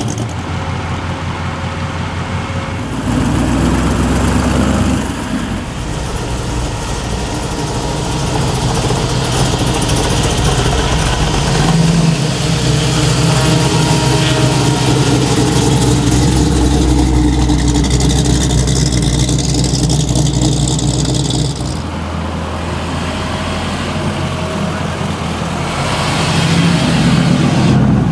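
Big American V8 engines running at low revs, their note and loudness changing several times as different cars come and go.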